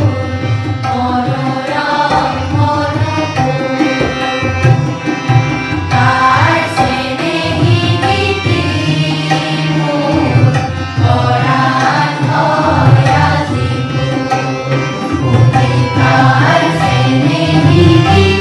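A large group of children and adults singing an Assamese song together in unison, accompanied by tabla.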